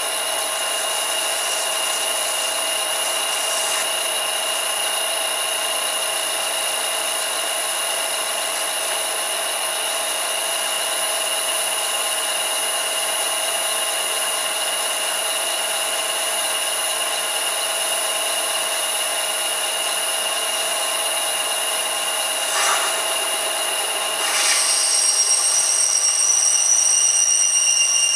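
A vintage Karger lathe running under a frequency drive (VFD) while turning a metal workpiece: a steady whine of motor and spindle over the noise of the cut. Near the end it gets louder and higher tones join in as the cut bites harder.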